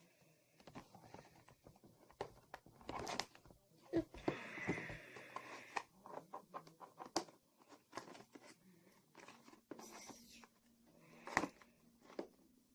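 Scissors cutting tape and hands working open a cardboard toy box: scattered clicks and scrapes, with a longer tearing, rustling stretch about four to six seconds in and a sharp snap near the end.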